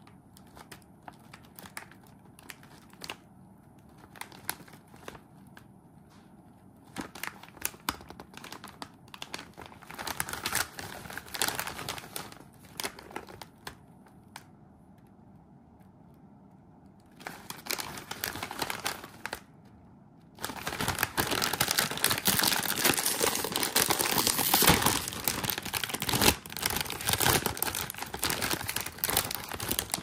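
Potato chip bag crinkling as it is handled and torn open: scattered soft rustles at first, then bursts of crinkling, and a long loud stretch of dense crinkling over the last third.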